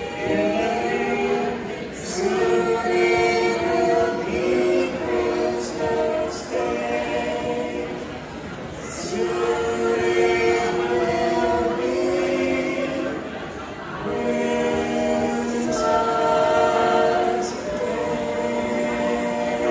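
A choir singing a cappella: several voices holding sustained chords in phrases of a few seconds, with short breaks between phrases.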